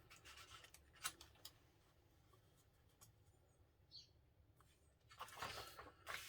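Near silence, broken by a few faint, short clicks and a light rustle near the end.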